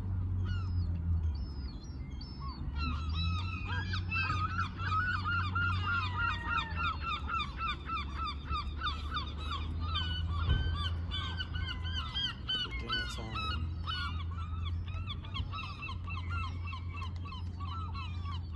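Seagulls calling: many short calls repeated and overlapping, growing denser a few seconds in, over a steady low rumble.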